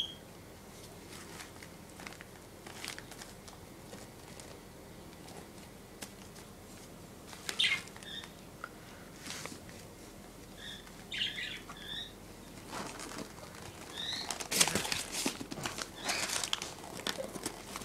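Gift-wrapping paper crinkling and rustling in irregular short bursts as a cat paws and burrows among wrapped presents, growing busier over the last few seconds.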